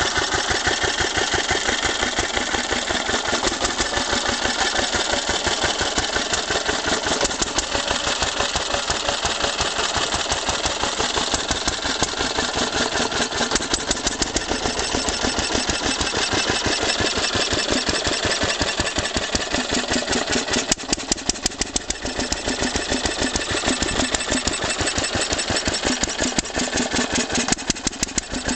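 Bamford EG2 2 HP single-cylinder petrol stationary engine running steadily with an even firing beat. A thin squeak rides over it: air leaking past a torn inlet manifold gasket. The level dips briefly twice late on.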